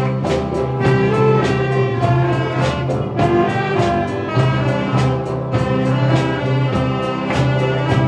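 A youth wind band of clarinets and saxophones with a drum kit playing a tune over a steady drum beat.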